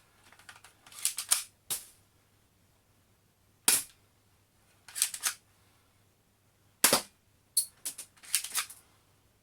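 Full-metal spring-powered airsoft Colt 1911 pistol being fired several times. Each shot is a sharp snap, and short runs of metallic clacks come between the shots as the slide is pulled back by hand to cock the spring.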